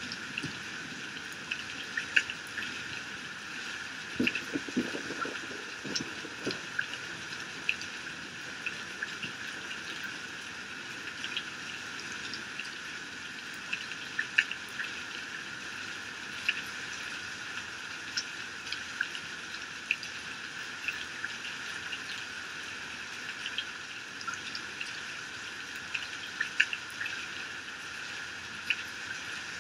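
Heavy rain pouring off a roof edge and splashing onto the ground, a steady hiss with frequent sharp ticks of individual drops.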